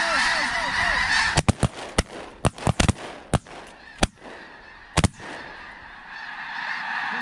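Huge flock of snow geese calling as a continuous noisy din, broken about a second in by a volley of about a dozen shotgun blasts from several hunters, spread over some four seconds. The goose calling builds again near the end.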